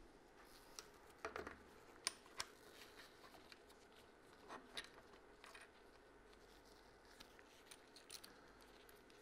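Faint clicks and taps of small parts being handled as the fluid reservoir and its tube are fitted to a radial master cylinder, the sharpest click about two seconds in.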